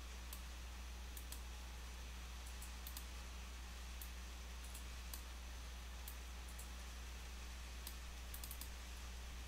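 Computer mouse clicking: a dozen or so faint, sharp clicks at irregular intervals, several in quick pairs like double-clicks, over a steady electrical hum and hiss.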